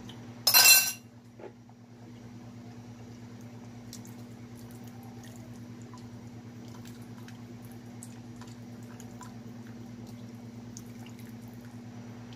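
Pot of pork soup simmering, with faint scattered bubbling pops over a steady low hum. A brief loud burst of noise comes about half a second in.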